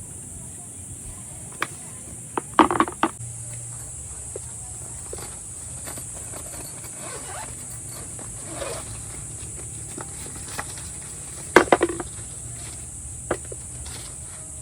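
Scattered sharp knocks and clatters, bunched about two and a half seconds in and again near the end, over a steady high-pitched buzz.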